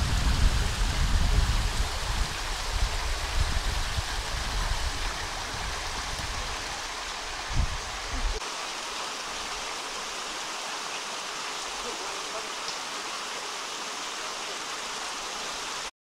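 Steady rushing of flowing stream water. Wind buffets the microphone with a low rumble through the first half, with a brief thump about seven and a half seconds in, after which only the even water rush remains.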